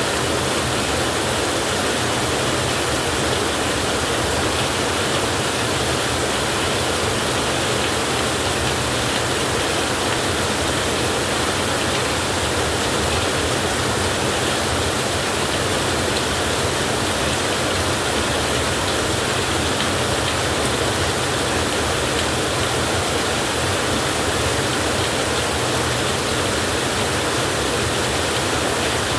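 Heavy rain falling steadily: a dense, even hiss with no thunderclaps.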